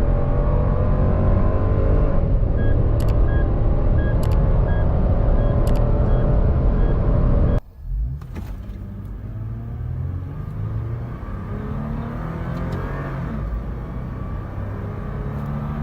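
Toyota Land Cruiser engine accelerating hard, its pitch climbing steadily, while a warning chime beeps repeatedly in the middle of the first half. About halfway through, the sound cuts abruptly to another Land Cruiser accelerating more quietly, its pitch rising and dropping back at gear changes.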